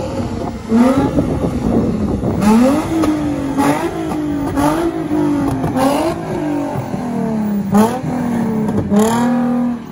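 Nissan 350Z's V6 engine revving as the car rolls slowly past, its note climbing and dropping in repeated throttle blips about once a second.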